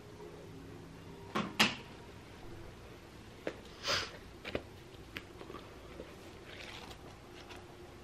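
A few knocks and clicks from objects being handled, the loudest a close pair about a second and a half in, with smaller taps and a soft rustle later.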